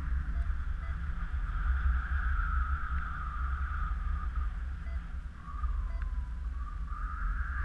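Paragliding variometer giving a tone that wavers in pitch with the glider's climb rate, dipping lower about five seconds in and rising higher near the end as the lift strengthens. Steady wind rush on the microphone underneath.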